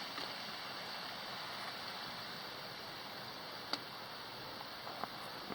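Steady rush of the waterfall and stream in the canyon below, with a few light clicks and knocks of footsteps on the trail, one sharper click in the middle.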